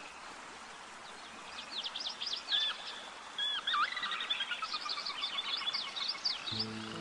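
Small birds chirping and twittering in quick, sweeping notes over a steady background hiss. A low, steady pitched sound comes in near the end.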